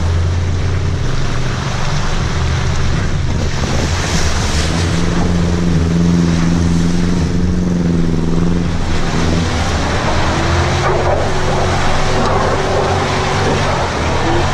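Off-road vehicle's engine running hard under load, its revs climbing a few seconds in and falling back later, over a steady rush of noise.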